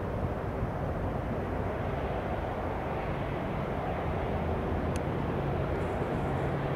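Jet engines of an Airbus A330-300 airliner, heard as a steady, unbroken rumble.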